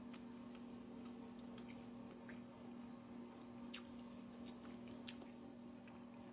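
Faint closed-mouth chewing of a mouthful of chicken sandwich with sliced cucumber pickles: soft wet clicks and squishes, two of them a little louder past the middle, over a steady low hum.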